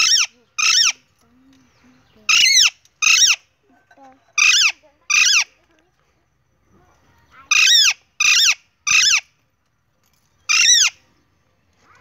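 Alexandrine parakeet calling: about ten short, loud, piercing calls, each rising then falling in pitch, given in pairs and threes with pauses of a second or two between groups.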